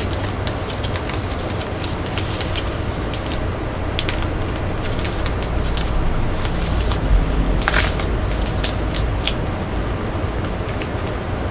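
Blu-ray case and its packaging being handled and put away: scattered clicks and short rustles over a steady low hum, with a longer rustle about three quarters of the way through.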